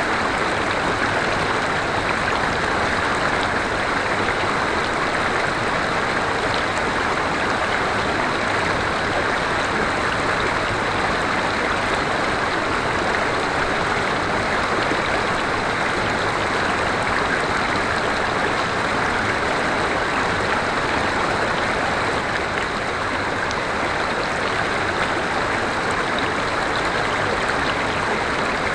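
River water flowing and splashing over rocks in a steady rush, with no breaks or changes.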